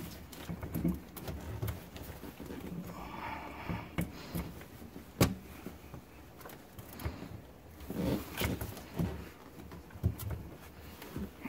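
Irregular knocks, clicks and rustling from hands-on work with tools and parts, with one sharp knock about five seconds in.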